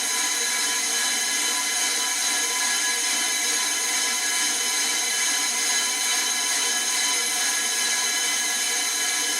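Brake disc resurfacing lathe running steadily, a constant high mechanical whine with cutting noise as the brake disc is machined to cure brake judder.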